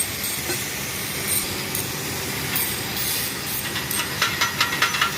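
Arc welding on metal: a steady crackling hiss, joined near the end by a quick run of sharp metallic clicks.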